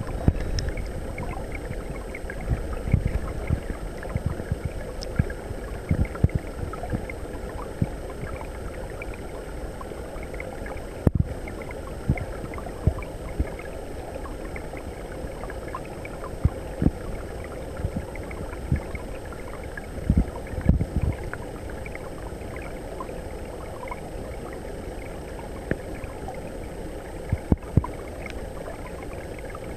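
Flowing water of a shallow stream heard underwater: a steady low rush broken by irregular, scattered thumps and pops.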